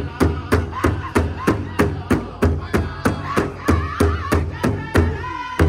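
A big powwow drum struck in unison by a circle of drummers in a steady beat of about three strokes a second, with the group singing a powwow song over it.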